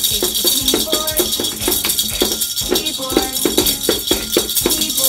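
Pink plastic toy maracas shaken in a quick, steady rattle, with a child tapping a small plastic toy drum with mallets.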